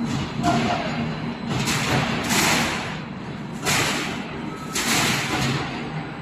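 Hexagonal gabion wire-mesh weaving machine running, with a steady low hum and a harsh rushing noise that repeats about every second or so as the machine cycles.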